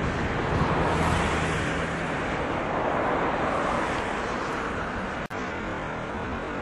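Steady rumbling traffic noise, with a low engine hum that fades out over the first two seconds. The sound drops out abruptly for a moment about five seconds in.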